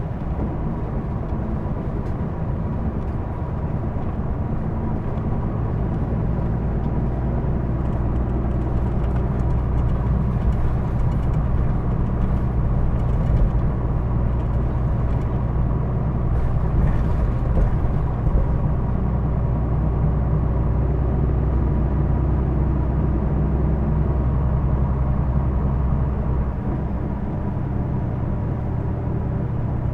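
Hino Blue Ribbon II city bus heard from inside the cabin while under way: a steady diesel engine drone with a thin high whine running over it, part of the odd running noise this bus is known for. Near the end the low drone drops and eases off.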